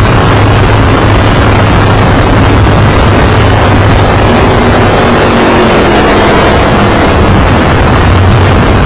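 Open-wheel IndyCar-style race car at speed, heard from a camera mounted on the car: a loud, steady engine drone under a heavy rush of wind noise on the microphone.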